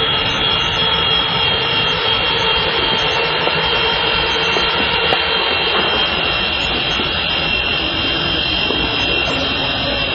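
Mini infrared remote-control helicopter's small electric motors and rotors running steadily in flight, a continuous high-pitched whine over a buzzing rotor wash.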